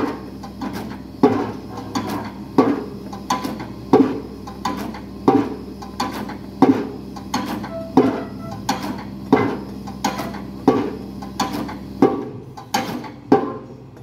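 Excavator-mounted pile hammer driving a steel pipe pile, striking about once every 1.3 seconds with a lighter knock after each blow, over the steady hum of the engine. Near the end the engine hum drops away and a few quicker, lighter strikes follow.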